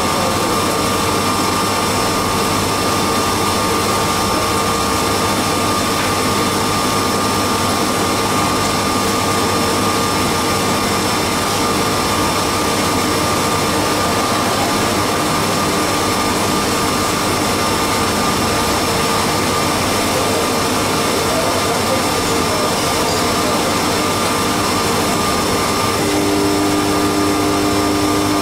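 Haas CNC milling machine running a machining cycle: a steady machine whine with a few held tones over a dense hiss. A new, lower tone comes in near the end.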